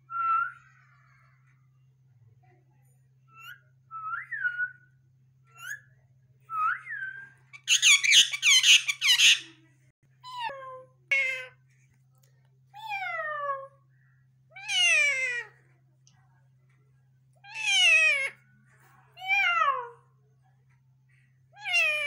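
Indian ringneck parakeet calling: a few short rising whistles, then a loud harsh screech about eight seconds in, then a run of falling whistled glides repeated every second or two.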